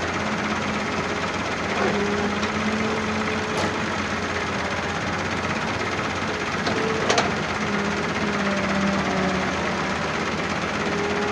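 Heavy machine's engine running steadily with a dense, even mechanical rumble, with two short sharp clicks about three and a half and seven seconds in.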